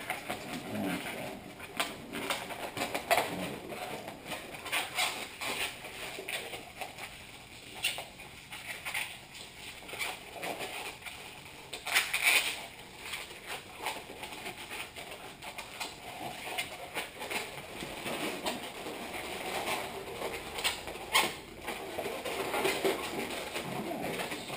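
Long latex modelling balloon squeaking and rubbing as it is twisted by hand, in irregular squeaks with a few sharper, louder ones.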